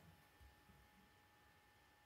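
Near silence: faint room tone with a couple of soft, low bumps about half a second in.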